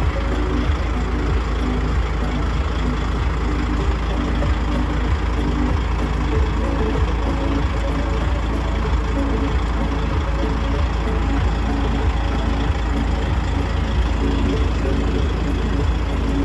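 Lorry's diesel engine idling, a steady low rumble.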